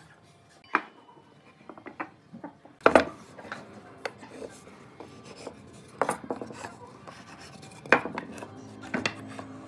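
Wood and hand tools being handled on a wooden workbench: scattered knocks and clicks, the loudest a double knock about three seconds in, with light scraping between them as a marking gauge is worked along a board.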